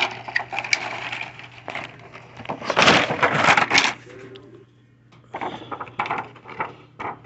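Cardboard box and clear plastic blister tray of a Hot Wheels five-car pack rustling and crackling as the tray is slid out of its sleeve. The loudest stretch is about three seconds in, and more crackles of plastic follow a brief lull.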